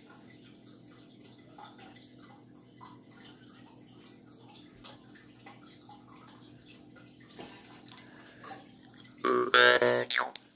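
Faint steady hum with small handling ticks, then near the end a steel jaw harp is plucked at the lips: a sudden loud buzzing twang that rings for about a second.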